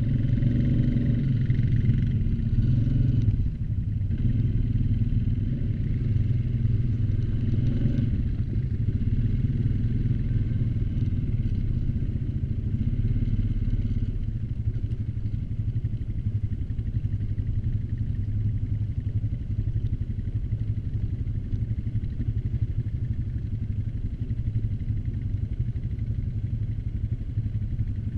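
ATV engine running steadily under way, a little louder for the first few seconds and then settling to an even drone.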